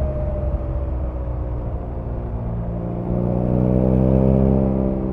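BMW R nineT's 1170 cc boxer twin running on the move: its note drops as the throttle is eased, then rises and gets louder as the bike accelerates from about three seconds in, easing off again near the end.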